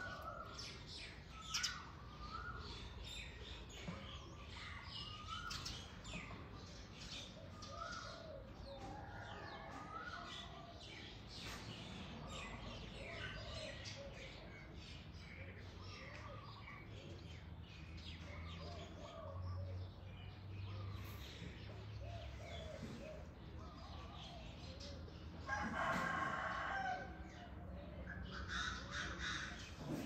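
Wild birds calling and chirping in many short, overlapping calls, with a louder burst of calls near the end.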